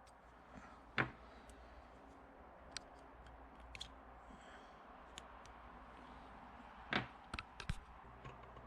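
A few sharp metallic clicks and taps, one about a second in and a cluster around seven seconds, over a faint low hum: hemostats and small steel locking pins being worked out of the rocker shafts of a Honda H22 cylinder head.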